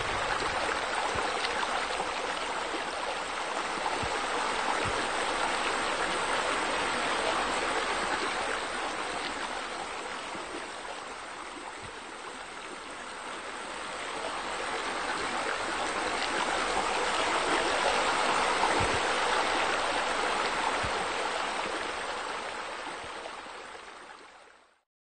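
Steady rush of running, splashing water, softer about halfway through, louder again later, then fading out at the end.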